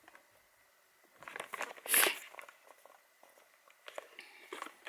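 Packaging handled by hand: a cluster of rustles and light taps starting about a second in, the loudest a sharp rustle about two seconds in, then a few small clicks near the end.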